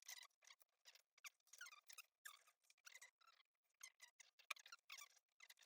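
Faint, irregular run of short squeaks and scrapes from tools and the laptop's plastic case being worked on.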